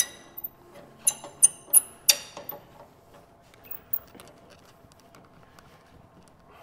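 Metal wrench working a bolt on a steel radiator mount bracket. About five sharp, ringing metallic clinks come in the first two seconds, followed by fainter ticks.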